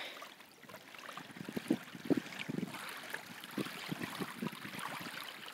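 Small wind-driven waves lapping and splashing irregularly against the shoreline.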